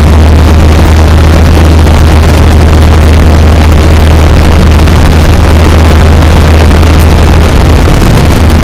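Light aircraft's engine and propeller droning inside the cabin: a loud, steady low hum with rushing air noise over it.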